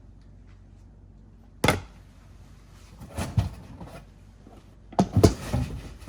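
Plastic disc golf discs knocking and clacking as they are handled and set down on a stack: one sharp knock, then two short bursts of clatter.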